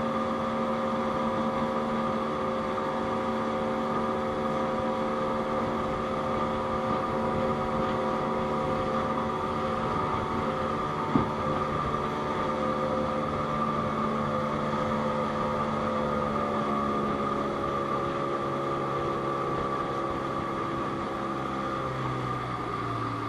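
Outboard motor of a small open fishing boat running at a steady speed, its pitch dropping near the end as it slows. A single sharp knock about halfway through.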